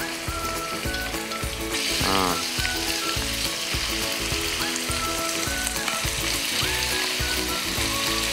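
Diced raw goat meat sizzling as it drops into hot oil in a wok and starts to sear; the sizzle grows fuller about two seconds in as more meat goes in. Background music with a steady beat plays throughout.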